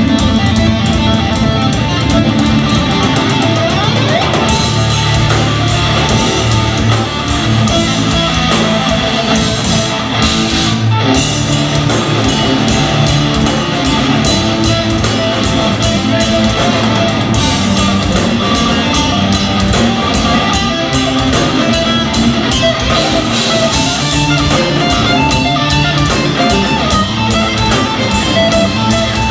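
Progressive metal band playing live: electric guitars, bass and drum kit in a continuous heavy passage.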